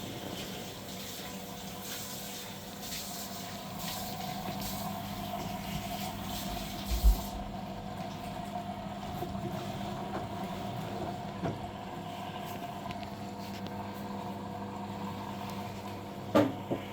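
Washing machine running with a steady hum while water rushes in. The rush of water stops about seven seconds in with a single heavy thump, and there is a sharp knock near the end.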